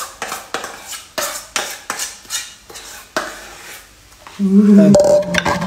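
Metal pans clinking and scraping: a stainless saucepan knocks against a frying pan as pasta and peas are tipped in and mixed, a quick run of sharp clinks for about three seconds. A person's voice comes in near the end.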